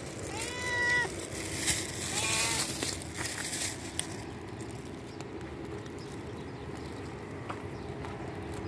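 A cat meowing twice, once about half a second in and again about two seconds in, the second call rising, while begging for food. Rustling noise goes with the calls and dies away about four seconds in.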